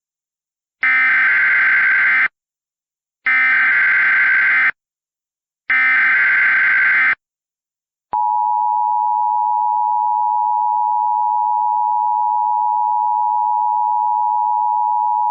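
Emergency Alert System tones opening a new alert: three bursts of SAME header data, each about a second and a half long with short gaps between them, then the steady two-tone EAS attention signal starting about eight seconds in.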